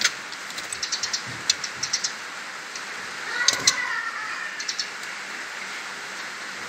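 Young white-rumped shamas in a cage giving short runs of sharp, high clicking ticks, with a brief wavering chirp about three and a half seconds in.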